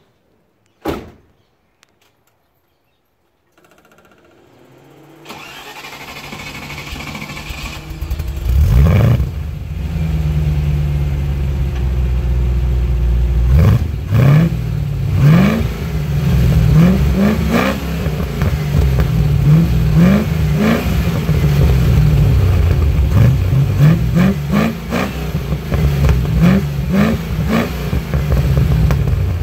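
Newly built Rover 3.9-litre V8 in a 1985 Land Rover Defender 90, heard at its stainless steel exhaust: after a single knock about a second in, the engine starts about five seconds in and runs at idle, then is blipped in a long series of short revs.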